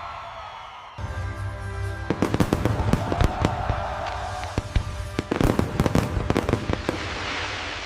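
Fireworks going off in rapid succession: many sharp bangs and crackles that start about two seconds in and come thickest near the middle and later on, over background music.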